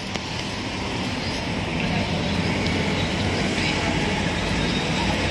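Steady, even din at a roadside street-food cart, traffic and stall cooking noise mixed, with a low hum underneath.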